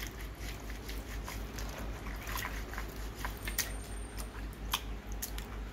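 Hands rubbing soaked soybeans together in a plastic bowl of water, with irregular small clicks of beans and light splashing: the beans are being rubbed to slip off their skins.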